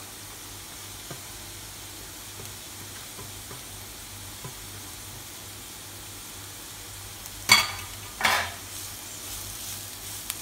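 Onions and freshly added grated carrot sizzling steadily in a non-stick frying pan as they are stirred in. About three-quarters of the way through, two loud metallic clanks come less than a second apart.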